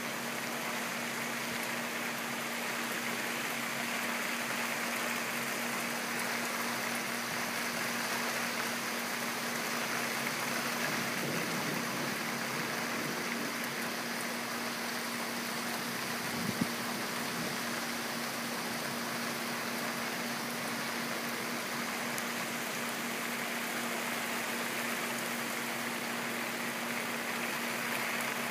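Heavy thunderstorm rain pouring steadily, a constant even hiss, with a steady low hum underneath and one small knock about halfway through.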